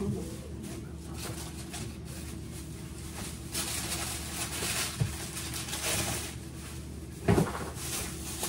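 Groceries being handled in a kitchen: packages rustle and items or a cupboard knock lightly, with a sharper knock about five seconds in and a louder one near the end, over a faint steady hum.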